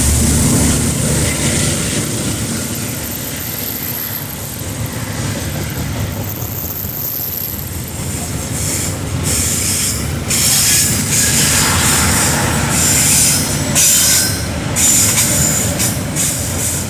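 Container wagons of a freight train rolling past on the rails: a low wheel-on-rail rumble that eases over the first few seconds, two brief high-pitched wheel squeals a few seconds in, then a run of sharp clatters as wheels pass over the rail joints in the second half.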